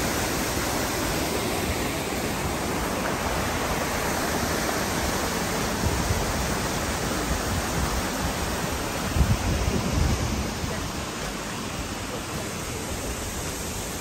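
Steady rushing of a waterfall cascading down a granite rock face, with a few low bumps on the microphone about two-thirds of the way in; the rush eases a little near the end.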